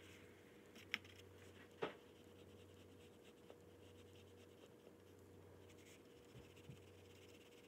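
Faint scratching of an oil pastel stroked over paper, with two sharp clicks about one and two seconds in, over a steady low hum.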